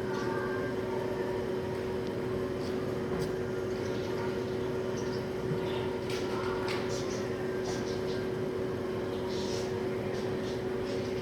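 Small caged pet-store birds chirping in short, scattered high calls over a steady mechanical hum.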